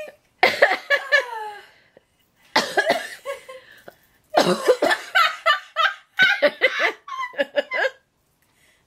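A woman laughing helplessly in three long bursts, the last the longest, with coughing in the laughter.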